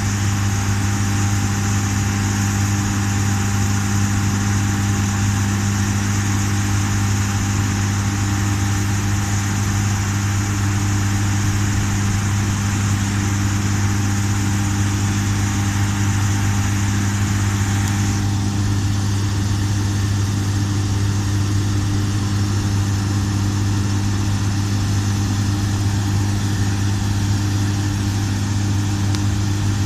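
John Deere S680 combine harvester running steadily while harvesting, a deep diesel engine hum under a continuous hiss of machinery. The higher hiss drops away suddenly about eighteen seconds in.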